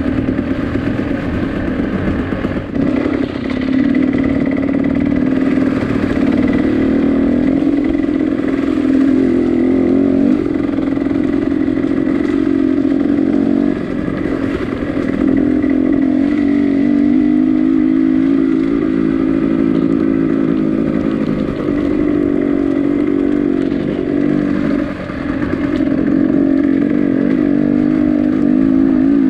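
Motorcycle engine running under way, its note rising and falling with throttle and gear changes, with a few brief drops in loudness.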